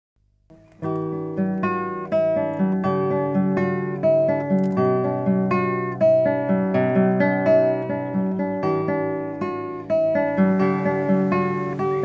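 Instrumental acoustic guitar music, single notes picked one after another in a steady flowing pattern, starting just under a second in.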